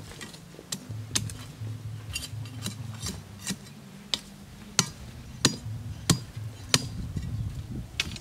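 Scattered sharp clicks and snaps, about ten, irregularly spaced and loudest in the second half, from hand work with a split-bamboo strip and garden plants, over a low steady hum.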